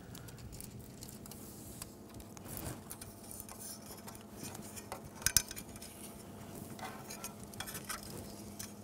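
Hands threading and turning a metal reel of analog tape on a reel-to-reel machine. Light scattered clicks and rubbing, with a sharper click about five seconds in, over a faint steady hum.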